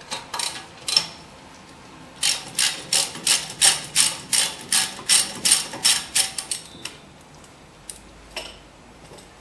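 Hand ratchet clicking as a brake caliper bracket bolt is backed out: a run of sharp clicks, about four a second, lasting some four seconds from about two seconds in, with a few scattered metal clicks before and after.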